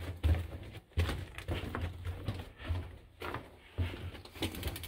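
Footsteps crunching on the rock and gravel floor of a mine tunnel, a step about every half second to second, over a steady low hum.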